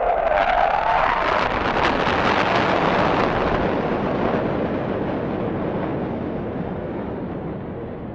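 F-16 fighter jet's single engine at the loudest point of a flyby: a dense, loud rush of jet noise with a ragged crackle, its whine dropping in pitch as it passes. It then recedes, fading slowly as the jet flies away.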